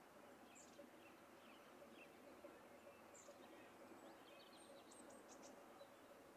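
Near silence outdoors with a few faint, short, high bird chirps, a quick cluster of them about five seconds in.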